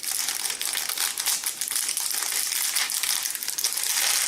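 A Lego parts bag being cut open and handled, crinkling continuously as the pieces are worked out.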